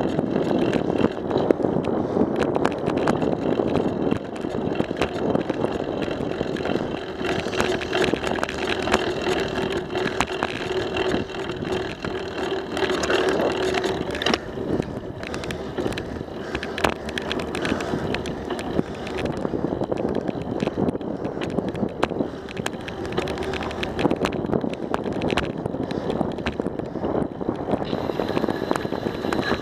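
Bicycle rolling along a paved path: a steady rush of tyre and wind noise, with frequent rattling clicks from the bike as it goes over the surface.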